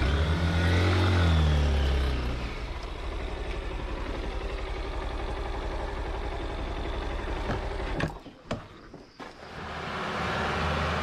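Motorcycle engine revving up with a rising pitch for the first two seconds, then running steadily. It drops away abruptly about eight seconds in and picks up again a second or so later.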